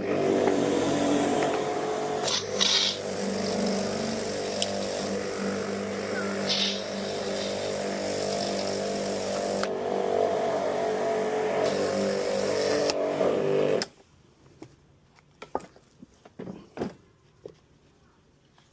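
Kärcher K-series electric pressure washer test-run after a rebuild: a steady motor-and-pump hum with a spray hiss, with two short louder hisses in the first few seconds. It cuts off suddenly about fourteen seconds in, followed by faint clicks of handling.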